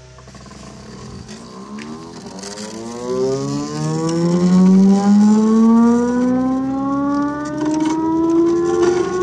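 NEMA 17 stepper motor driving a 3D-printed herringbone gear winch that winds a chicken coop ramp's cable. Its whine, with several overtones, climbs steadily in pitch and grows louder as the motor speeds up, levelling off near the end.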